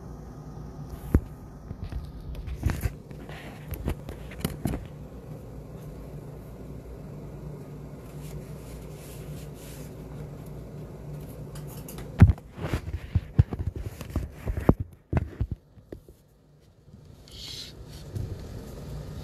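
Handling noise from a phone being picked up and set in place: scattered knocks, clicks and scrapes against a steady low hum, with a cluster of louder knocks past the middle.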